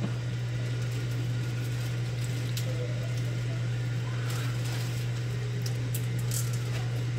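A steady low hum, with faint scrapes and clicks of a silicone spatula stirring a ground beef and green bean mixture in a skillet.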